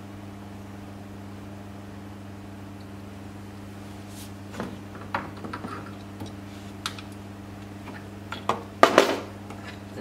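Scattered small clicks and knocks of a metal dial caliper being handled and set against the edge of a wooden drawer, starting about halfway in. Two louder knocks come close together near the end. A steady low electrical hum runs underneath.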